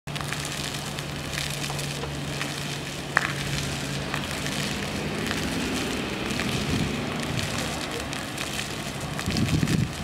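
Water jets of a ground-level plaza fountain falling back and splashing onto wet paving: a steady patter of crackling droplets. A low steady hum runs underneath for the first few seconds.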